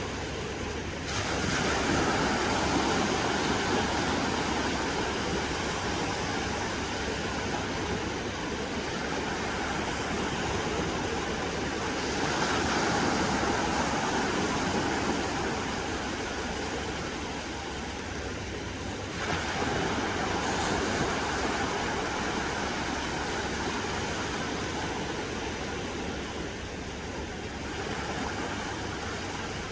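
Small, gentle sea waves washing onto a sandy beach as a continuous surf hiss. It swells louder as each wave comes in, about a second in, again around twelve seconds and again around nineteen seconds, with wind rumbling on the microphone underneath.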